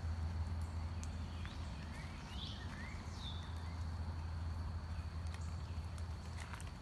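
Outdoor ambience: a steady low hum under an even hiss, with a few short bird chirps, sweeping up or down in pitch, between about one and three and a half seconds in, and scattered faint ticks.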